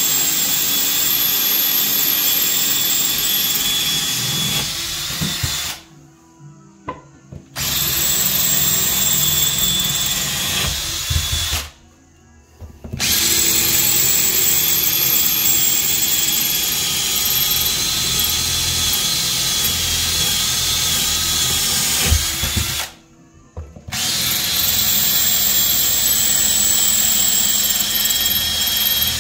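Cordless drill boring holes through glazed ceramic wall tile, running in long steady stretches with a high whine. It stops three times for a second or so.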